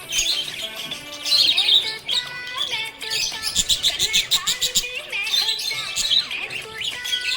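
Budgerigars chirping and warbling, with a fast rattling chatter about halfway through.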